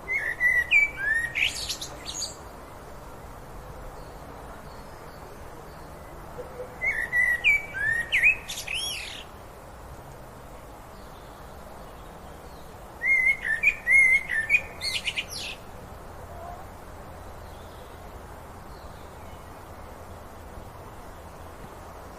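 A songbird singing three short phrases of chirps and whistled glides, spaced about six seconds apart, over a steady low background hiss.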